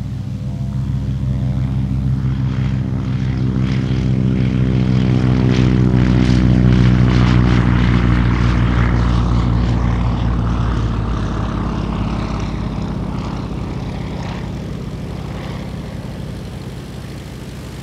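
Single-engine propeller light aircraft at full power on take-off. It grows louder, peaks about seven seconds in, then fades as it climbs away.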